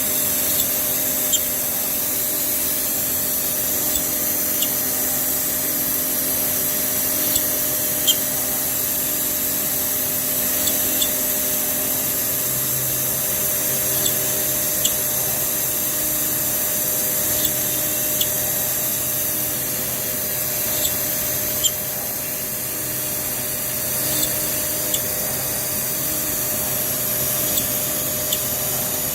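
CNC router drilling 8 mm holes in an acoustic panel: a steady machine whine with a high hiss, broken by short sharp ticks every second or two. A low hum comes in about twelve seconds in.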